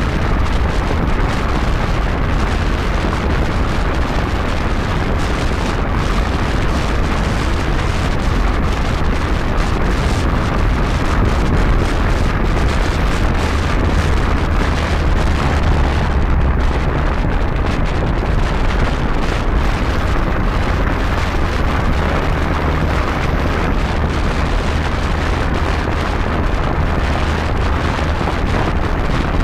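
Wind buffeting a microphone on a motorcycle moving at speed: a steady, loud rumble with constant fluttering gusts.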